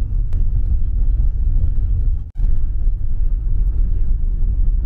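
Mahindra XUV500 driving slowly along a rough dirt track, heard from inside the cabin as a steady low rumble of engine and tyres on the unpaved surface. The sound cuts out for a moment a little past two seconds in.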